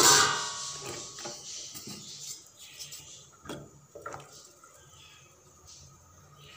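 A metal utensil knocks against an aluminium cooking pot holding peanuts in water: one loud ringing clang at the start, then a few lighter clinks and knocks.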